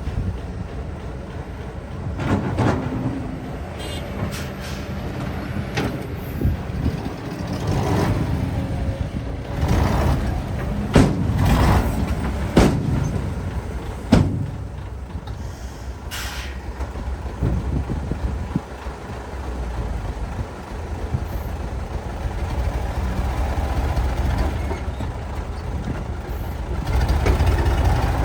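Heavy diesel machinery, an excavator and dump truck, running steadily with repeated sharp metal clanks and knocks. A short hiss of released air comes a little past halfway through.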